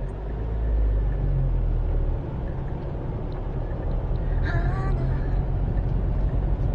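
Car engine and tyres droning steadily, heard from inside the cabin while driving up a mountain dirt road; the drone grows louder about a second in. About four and a half seconds in, a brief wavering voice-like sound rises and falls over it.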